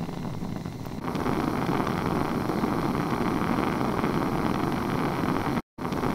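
Bunsen burner with its air hole open, running a roaring blue flame: a steady rushing noise that grows louder about a second in and drops out for an instant near the end.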